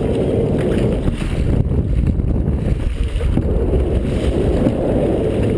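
Wind buffeting the microphone on an open dragon boat: a loud, steady low rumble.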